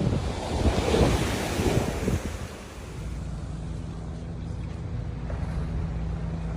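Strong wind buffeting the microphone in uneven gusts. About halfway through it eases into a steadier rush under a low, even hum.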